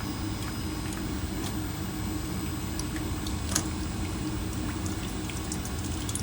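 Steady low hum and rumble, with a few faint clicks and taps; the clearest tap comes about halfway through.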